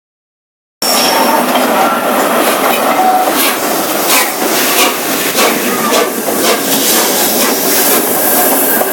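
A steam-hauled passenger train passing close by: its wheels clatter and click on the track, with a few brief wheel squeals. The sound cuts in abruptly about a second in.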